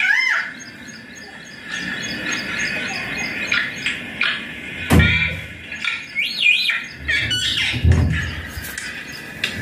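Indian ringneck parakeet giving short warbling chirps that wobble up and down in pitch, once at the start and again about two-thirds of the way through. There are two duller low thuds, about halfway and near the end.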